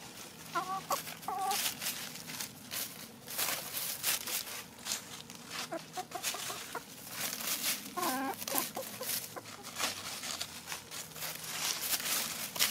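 Hens clucking softly in a few short notes, near the start and again about eight seconds in, over steady crackling of dry leaves as they peck and scratch through the litter.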